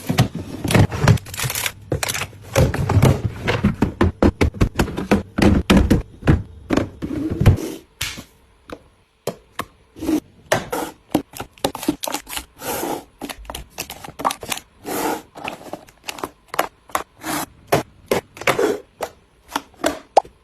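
Food containers and packaging being handled and set down while a refrigerator is restocked: rapid clicks, taps and knocks, with heavier thuds for the first seven seconds or so, then sparser, lighter taps.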